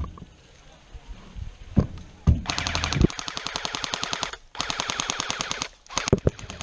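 Airsoft electric rifle firing two rapid full-auto bursts, the first about two seconds long and the second about one second, with a short break between. A few single sharp knocks come just before and after the bursts.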